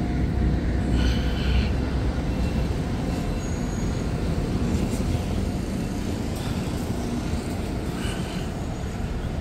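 Steady low rumbling noise of a train running on nearby tracks, easing slightly toward the end.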